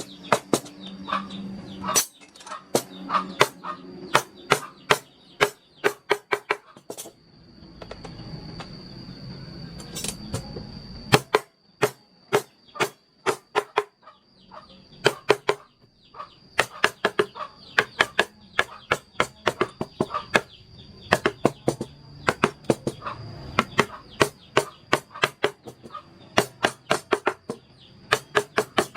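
A wooden mallet striking a carving chisel: rapid, irregular sharp taps, two or three a second, in runs with short pauses. A thin steady high tone sounds underneath.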